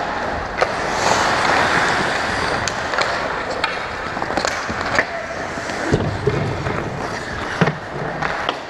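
Ice hockey skates scraping and carving on the ice, broken by several sharp clacks of sticks and puck.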